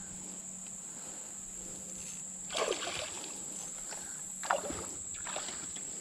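Steady high-pitched buzz of insects, with a hooked fish splashing at the surface twice, about two and a half and four and a half seconds in.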